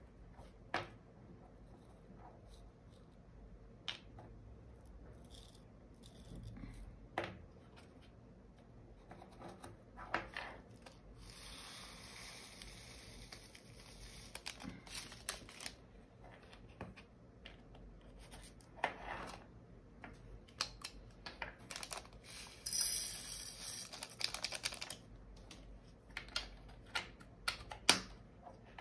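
Diamond painting drill packets and small storage containers being handled: small plastic bags rustling and tearing open, scattered sharp clicks, and two longer hissing stretches.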